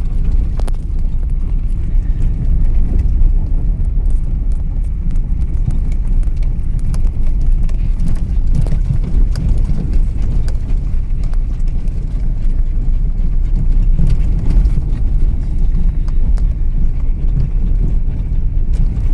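Vehicle driving: a steady low rumble with frequent small knocks and rattles.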